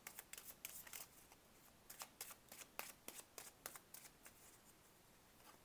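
Tarot deck being shuffled by hand, the cards slipping and snapping against each other in faint, irregular soft clicks that thin out near the end.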